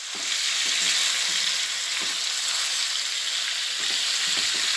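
Chopped jackfruit frying in oil in a wok, sizzling steadily, with short scrapes of a metal ladle stirring against the pan.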